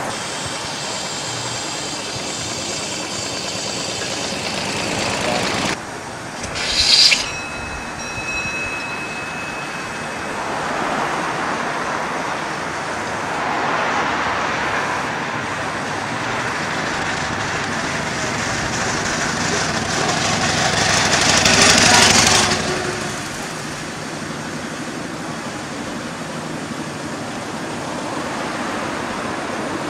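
Street traffic going by, veteran cars among modern cars, with a brief sharp burst about seven seconds in and a vehicle passing close and getting louder around twenty-two seconds in.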